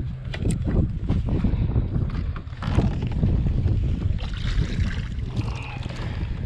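Scattered knocks and clatter of a landing net and fishing rod being handled against a kayak, over the low rumble of wind on the microphone.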